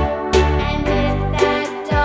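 Cheerful background music for children, with pitched instrumental notes over a steady beat.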